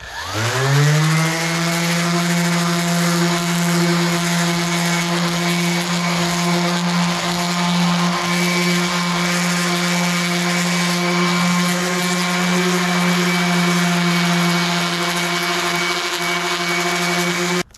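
Electric random orbital sander switched on and spinning up within about a second, then running steadily while sanding a plastic kayak hull with fine 2000-grit paper, and switched off abruptly near the end.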